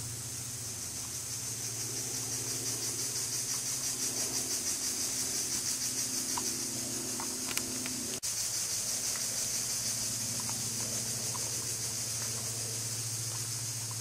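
Steady high-pitched buzzing of forest insects, pulsing very rapidly, over a low steady hum. A single sharp click just past halfway, and a few faint short pips.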